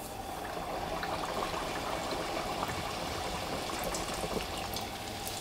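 Hot oil bubbling and sizzling steadily around a strip of youtiao dough just dropped in to deep-fry, with faint fine crackles; the oil is at full frying heat.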